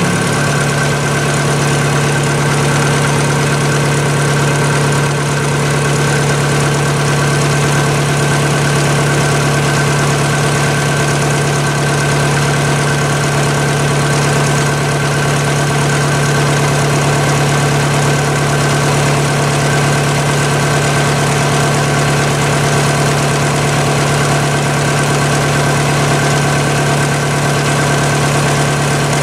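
Chinese mini lathe running steadily, its motor and gear train giving a low hum with a steady high whine over it. The hum drops slightly in pitch right at the start.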